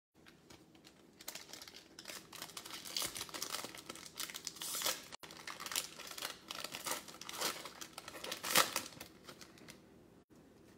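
Cardboard trading cards being shuffled and slid against one another in the hands: an irregular run of dry rustling and scraping strokes.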